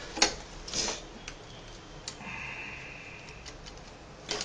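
Sharp clicks and short knocks of plastic and metal parts of an HP 540 notebook's display assembly being handled as the LCD panel and hinge are worked loose; the loudest click comes about a quarter second in, with a faint steady high tone for about a second midway.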